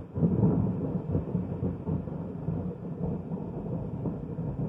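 Thunder rumbling, swelling just after the start and rolling on while slowly fading.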